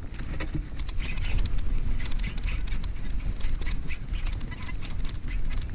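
Baitcasting reel being cranked and handled right beside the microphone: rapid, irregular clicking and ticking over a low rumble.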